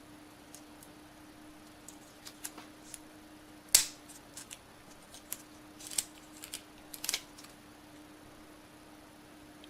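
Small sharp clicks and crinkles from handling a phone's packaging and cable. One loud click comes about four seconds in, then a quick run of smaller clicks a couple of seconds later.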